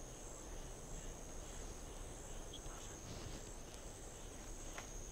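Insects buzzing in a steady, high chorus that pulses slightly, over faint outdoor background noise.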